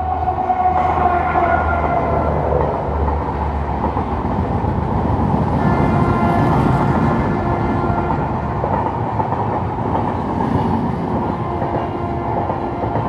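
Janshatabdi Express passenger train running through, a continuous loud rumble of wheels on the rails.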